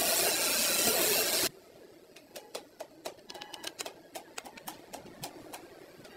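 A power saw cutting through a wooden block, loud and steady, stops abruptly about a second and a half in. Then a hammer taps small nails into thin wooden slats, in quick light strikes about three a second, some with a short metallic ring.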